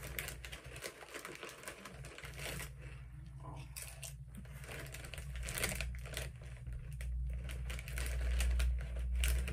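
Plastic Doritos bag crinkling as a hand rummages in it, with tortilla chips crunching between the teeth. Underneath, a low rumble grows louder over the second half.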